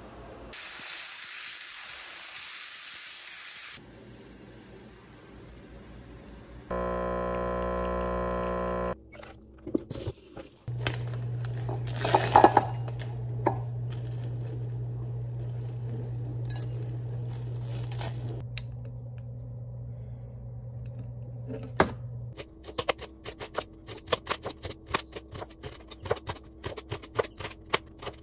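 Kitchen sounds: a short hiss, a brief steady tone, and a steady low hum with a clatter of dishes. From about 22 seconds on, a knife chops quickly through an onion onto a cutting board in fast repeated taps.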